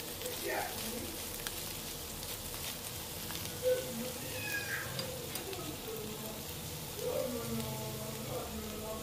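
Shredded chicken frying in oil in a non-stick pan, a steady low sizzle with occasional spatula scrapes. Faint pitched voice-like sounds come in twice in the background, near the middle and near the end.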